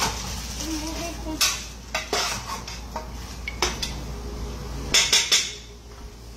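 Metal spoon stirring frying beef in a pot, clinking and scraping against the pot at irregular moments, over a faint sizzle. Three sharp clinks come close together about five seconds in.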